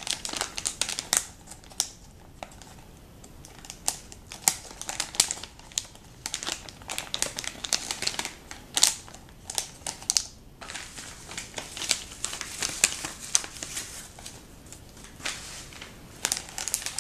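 Metallised anti-static bag crinkling and crackling irregularly as hands unfold it and slide a Raspberry Pi circuit board out of it.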